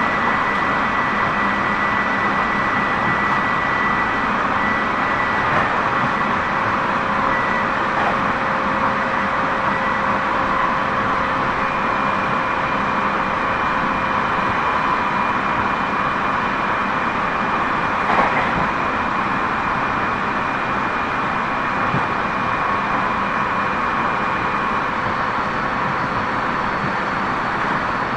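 Tobu 30000 series electric train running at steady speed, heard from inside the car: continuous rolling noise with thin steady whines from the traction equipment that fade and return at different pitches. There is a single sharp knock about 18 seconds in.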